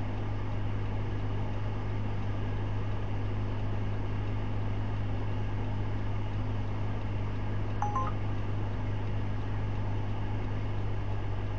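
Steady low hum inside a stationary minivan's cabin, with a brief two-tone electronic beep about eight seconds in.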